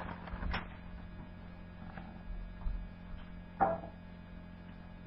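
Quiet room tone with a steady electrical hum, broken by a few brief soft noises: one about half a second in and a louder one about three and a half seconds in.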